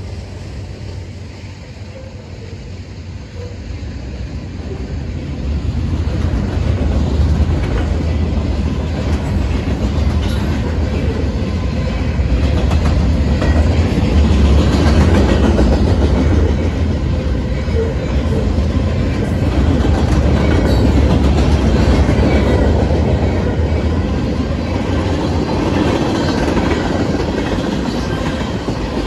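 Freight train cars rolling past at track level, the wheels running over the rails. The sound grows louder about six seconds in and stays strong.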